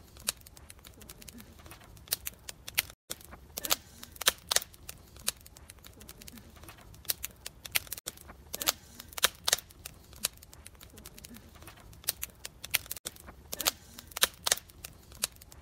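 Wood fire of split logs crackling in a fire bowl: irregular sharp pops and snaps, sometimes several a second, over a faint low hiss. The sound drops out for an instant three times, about every five seconds.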